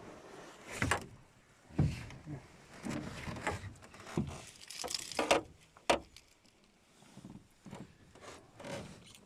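Irregular rubbing, scraping and rustling with a few sharp knocks, the sound of fish and gear being handled in a boat.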